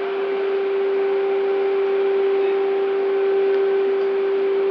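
Heavy machinery running steadily: a constant hum held at one mid pitch over an even hiss, with no change in speed.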